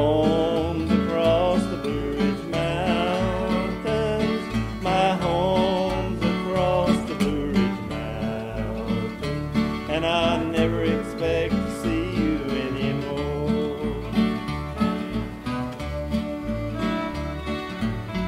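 Old-time string band playing live: acoustic guitars strum a steady country rhythm under a wavering lead melody, with a fiddle bowing near the end.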